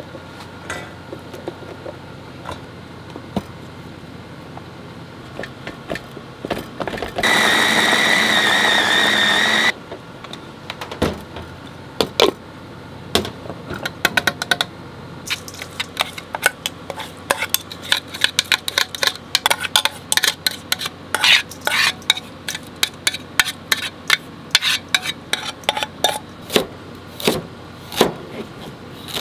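A small electric food chopper runs for about two and a half seconds with a high whine, mincing green vegetables in its stainless-steel bowl. Then a kitchen knife chops carrot on a plastic cutting board in a quick, uneven run of sharp taps.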